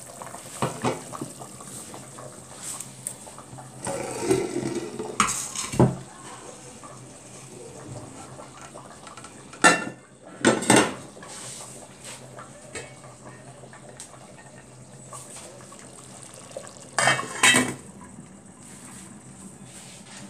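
Stainless-steel couscoussier steamer basket and pot being handled, with scattered clanks and short clattering spells of metal knocking and scraping against the glazed ceramic serving dish.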